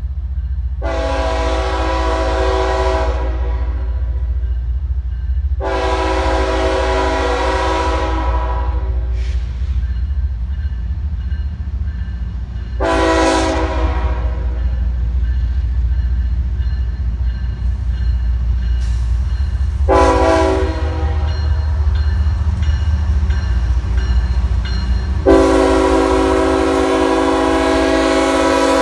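CSX diesel freight locomotive's air horn sounding five chords: two long blasts, two short ones, then a long blast held to the end, a crossing warning. Under the horn runs the steady low rumble of the locomotive as it approaches.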